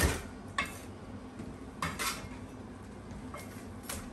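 Cleaver chopping through a whole fried chicken on a plastic cutting board: about five sharp chops at uneven intervals, the hardest right at the start.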